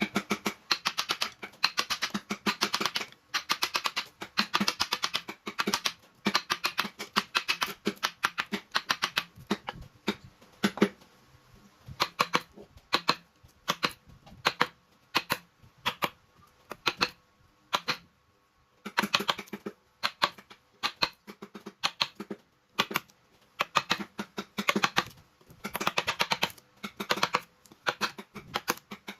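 Rapid, light tapping and clicking, many strikes a second, in runs of a few seconds with short pauses. Through the middle the strikes come more sparsely, with a brief pause before the fast runs resume.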